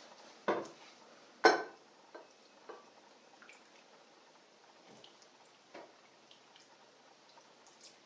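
Two sharp knocks of dishware about a second apart near the start, then faint scattered ticks and drips as milk is poured from a glass over slices of bread on a plate.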